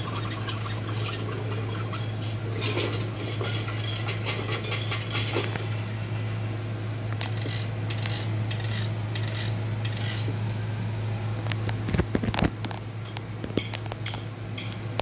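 Trailer soundtrack played through a TV speaker and picked up by a phone: a steady low hum with scattered light clicks and taps, and a few sharper knocks about twelve seconds in.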